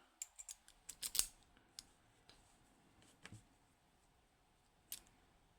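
Small sharp metallic clicks and taps from handling a lock and small tools such as tweezers and a follower key: a quick cluster in the first second or so, then a few single clicks.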